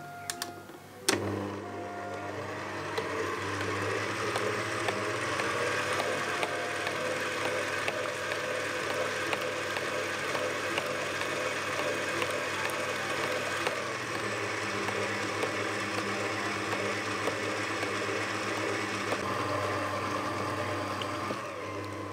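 Kenwood Major stand mixer switched on about a second in, its motor running steadily as the beater churns cultured cream into butter, then switched off near the end.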